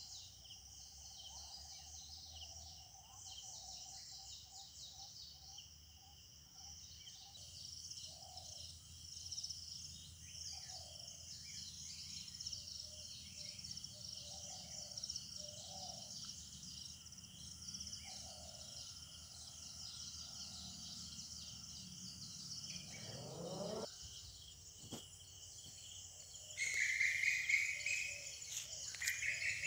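Morning forest ambience: insects drone steadily at a high pitch while birds call, with a run of short, lower repeated calls through the middle and louder, higher bird calls near the end.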